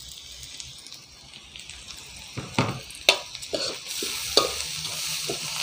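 Onion, carrot and cabbage sizzling in an aluminium wok. From about two and a half seconds in, a slotted metal spoon scrapes and knocks against the wok as they are stirred, and the sizzle grows louder.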